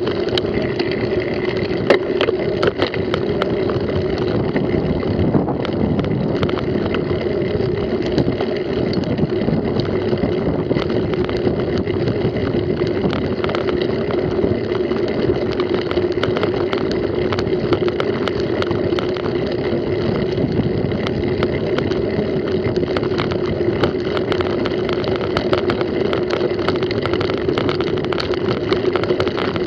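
Wind rushing over the microphone of a camera on a moving mountain bike, with a constant spatter of small rattles and knocks as the bike jolts over a bumpy grass track.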